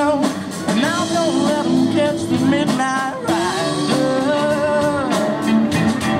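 A live rock band playing: a boy singing lead into the microphone over electric guitars and drums.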